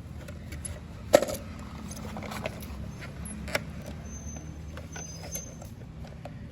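Car engine running steadily at idle, a low hum, with several sharp metallic clicks and knocks over it, the loudest about a second in.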